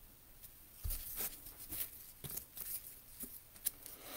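Soft crackling and light clicks of a plastic-wrapped trading-card pack being torn open and its cards handled, with one sharper click about three and a half seconds in.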